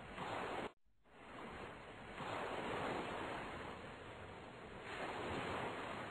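Sea waves washing against a boat, a soft surf sound effect swelling and fading about every two and a half seconds. It cuts out briefly less than a second in.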